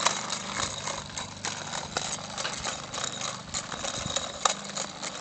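Child's bicycle with plastic training wheels rolling over a concrete sidewalk, the wheels and frame rattling and clicking irregularly over a steady low hum.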